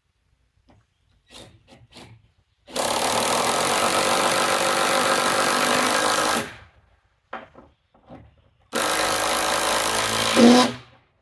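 Ryobi cordless impact driver sinking lag bolts into wood in two long bursts of rapid hammering, about four seconds and then about two, the second ending in a loud surge as the bolt seats. Short clicks come before and between the bursts.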